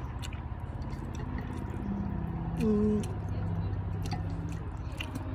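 Light clinks and taps of tableware at a meal, over a low murmur of background voices, with a brief voiced sound a little under three seconds in.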